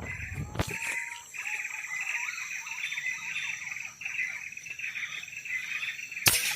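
Rainforest insects keeping up a steady, high, pulsing drone. A short rising bird call comes about half a second in, and there are two sharp clicks, one near the start and a louder one near the end.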